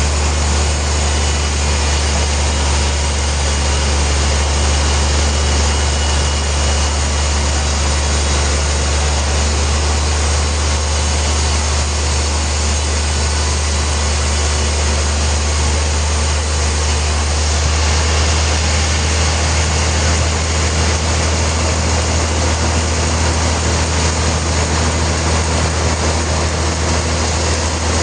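Sawmill machinery running steadily, a loud even drone with a strong low hum underneath.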